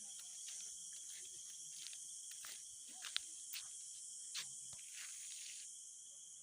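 A chorus of insects singing steadily: a high, even hiss with a thinner steady tone beneath it. The hiss layer cuts off about five and a half seconds in while the tone carries on, and faint short clicks and taps come through now and then.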